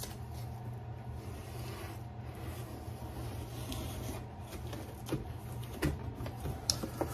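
Cardboard shipping box being worked open by hand: scraping and rubbing of cardboard and packaging, with a few light knocks in the second half, over a low steady hum.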